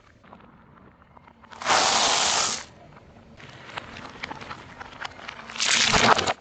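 Things being crushed under a car tyre: a loud rushing, spraying burst about a second long near two seconds in, then crackling and popping, then another loud burst near the end that cuts off suddenly.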